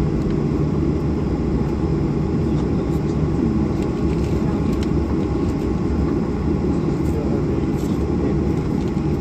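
Steady low rumble in the cabin of a Boeing 737-800 as it taxis onto the runway, its two CFM56-7B26 turbofan engines at taxi power.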